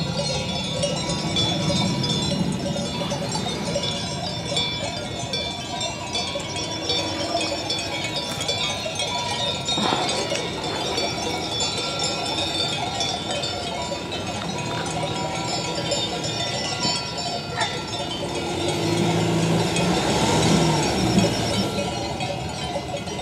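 Many small bells on a grazing flock of sheep and goats, clinking and ringing steadily.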